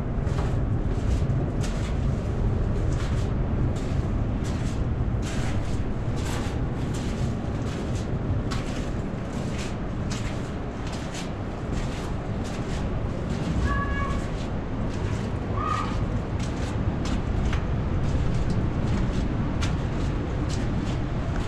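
Footsteps on sand, about two a second, over a steady low rumble; two short high-pitched calls about two-thirds of the way through.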